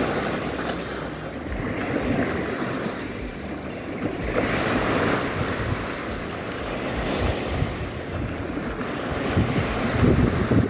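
Surf washing on a sandy beach, with gusts of wind buffeting the microphone, the strongest gust near the end.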